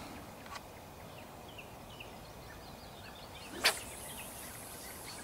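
Feeder rod cast: a single sharp swish of the rod about three-quarters of the way through, followed by a high hiss of line running off the spinning reel as the feeder flies out. Small birds chirp faintly throughout.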